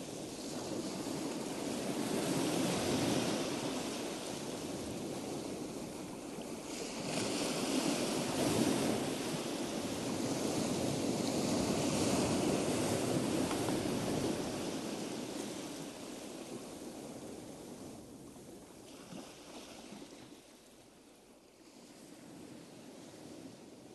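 Sea waves washing in slow surges a few seconds apart, then fading away over the last several seconds.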